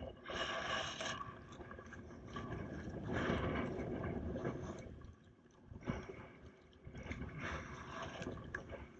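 Sea kayak paddle strokes: the blades dip and splash into the sea in several surges of water noise a few seconds apart, with a few small clicks.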